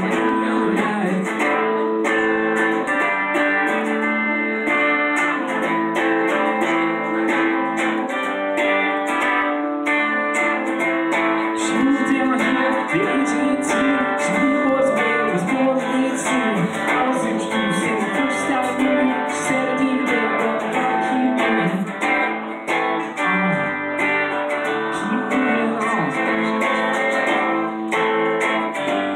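Live guitar music: strummed acoustic guitar with electric guitar, and a singing voice over it.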